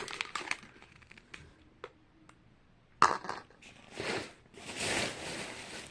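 Small plastic blind bag and packaging being handled: a few light clicks, then a sharp snap about three seconds in followed by spells of crinkling and rustling as a thin plastic bag is opened.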